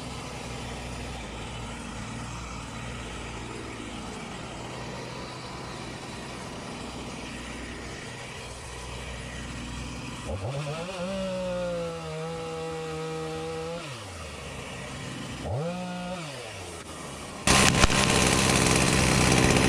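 Two-stroke chainsaw idling, revved up and held at high speed for a few seconds about halfway through, then blipped once. Near the end it runs much louder at full throttle.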